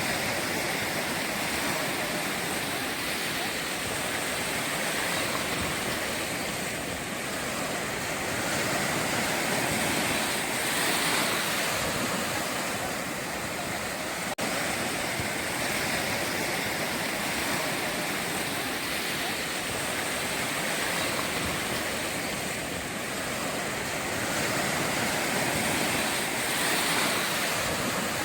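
Ocean waves breaking and washing up a beach: a continuous rush of surf that swells louder about a third of the way in and again near the end.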